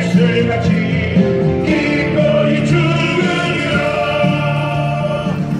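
Music: a song with a choir of voices singing over instrumental backing.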